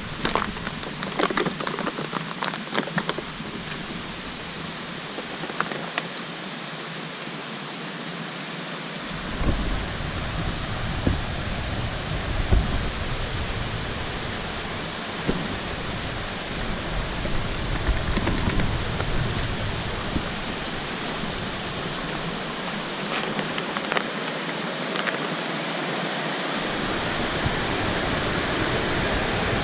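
Steady rush of flowing river water, growing a little louder near the end, with a few sharp clicks early on and low thumps in the middle.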